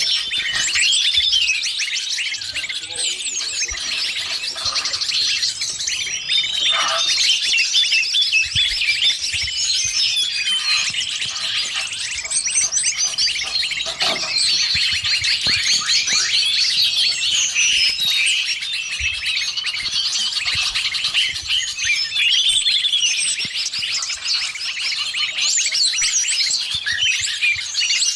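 Dense, unbroken chattering and chirping of many small songbirds layered together, a 'noisy birds' lure recording combined with greater green leafbird (cucak ijo) calls.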